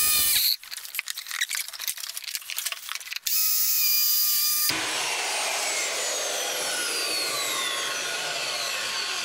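Corded circular saw trimming a cabinet face-frame stile: the motor whines at full speed, gives way to a quieter stretch of crackling clicks, whines again briefly, then is released and coasts down with a falling whine over about four seconds.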